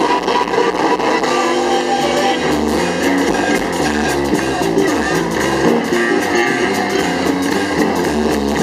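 Live band playing amplified music through a PA: guitar strumming over a stepping bass line and a steady drumbeat.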